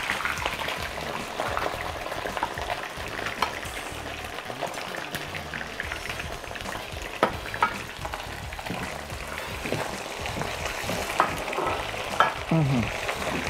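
Chicken pieces sizzling as they fry skin side down in hot ghee and oil in a wok, a steady frying hiss. A few sharp clicks of the tongs against the pan come about seven and eleven seconds in.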